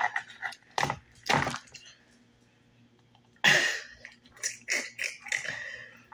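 A few short cracks and crunches as a steamed horseshoe crab's shell and innards are picked and pried apart by hand.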